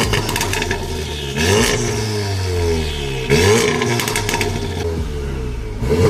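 Mk7.5 VW Golf R's turbocharged 2.0-litre four-cylinder EA888 engine, now on a Littco L500 hybrid turbo, being blipped at a standstill through its quad-tip exhaust. The revs rise and fall about four times, with a patter of crackles each time they drop.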